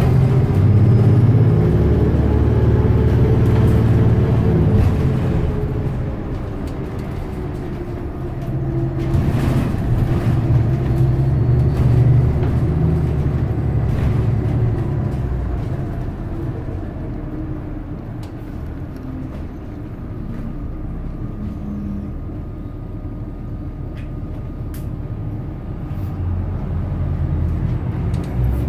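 Inside a moving San Francisco Muni bus: engine, drivetrain and road noise. It is loudest in the first five seconds and again about ten seconds in, then eases off through the second half.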